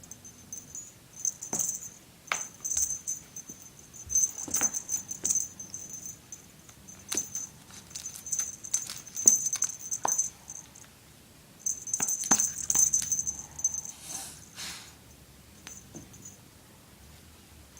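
A jingling cat toy rattled in bursts, with scattered light taps and knocks.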